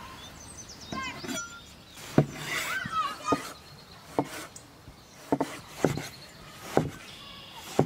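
Large kitchen knife slicing a tomato on a wooden cutting board: a series of sharp knocks, roughly one a second, as the blade cuts through and hits the board. Birds chirp in the background near the start and again midway.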